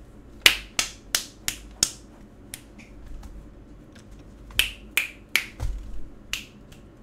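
Sharp clicks on a computer as the video player is paused and skipped back: about a dozen of them, a quick run of five in the first two seconds, a couple of single ones, then another run of five near the end.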